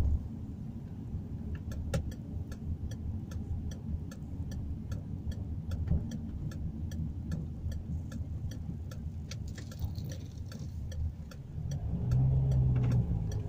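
Car's turn-signal indicator ticking evenly, about two to three ticks a second, over the low rumble of the engine and road heard inside the cabin. The engine note grows louder near the end as the car turns into the next street.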